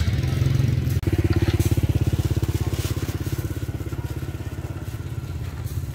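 A small engine running with a rapid, even throb, with a momentary drop about a second in.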